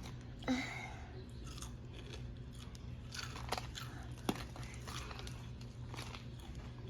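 Close-up chewing and crunching of fried chicken, with scattered small crunches and clicks over a low steady hum.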